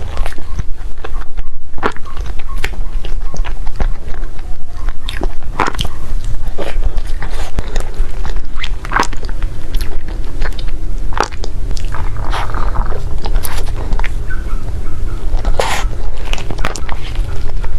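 Close-miked biting and chewing of cake: irregular sharp wet clicks and crunches from the mouth over a heavy low rumble.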